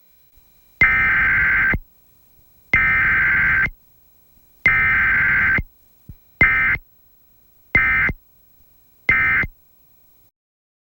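Emergency Alert System SAME data bursts, a harsh two-tone digital buzz: three long header bursts of about a second each, then three short end-of-message bursts.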